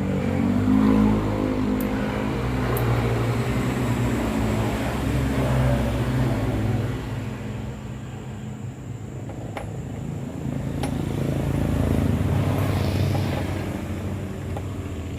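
An engine running, its pitch and level rising and falling, with two sharp clicks about two-thirds of the way through.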